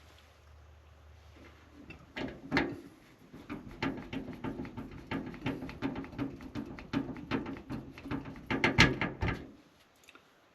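Hands working inside a PC case: a dense run of small clicks, rattles and scrapes from plastic and metal parts such as fans and screws being handled, starting about two seconds in and loudest shortly before it stops near the end.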